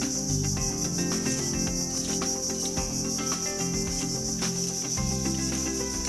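Steady high-pitched insect chorus droning without a break, with instrumental music underneath.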